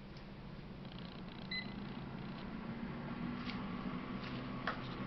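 Nutricook air fryer oven preheating: its fan running with a steady low hum that grows slightly louder, and one short electronic beep from the control panel about a second and a half in.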